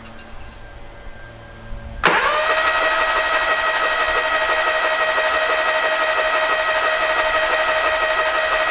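Kohler KT17 twin-cylinder engine turned over by its electric starter. A loud, steady whine starts about two seconds in and runs without the engine ever firing. The ignition wire is disconnected so the engine cranks without spark, clearing fuel from cylinders whose plugs came out soaked.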